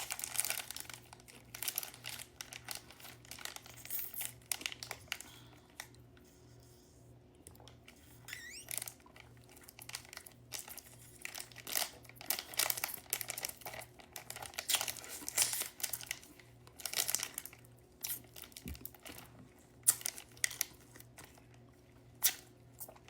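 Plastic ice-pop sleeve crinkling and tearing as it is handled and opened, in irregular crackles with a quieter stretch about six to eight seconds in.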